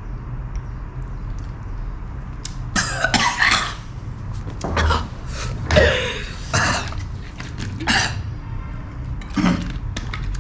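A man coughing in a series of fits after downing a shot of rum. The coughs start about three seconds in and come about once a second, the first the longest.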